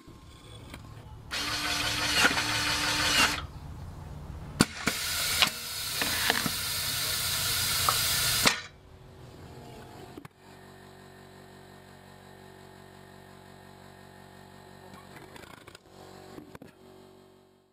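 Automated seeding machine running: two loud stretches of hiss, about two and four seconds long, broken by sharp clicks, then a quieter steady hum.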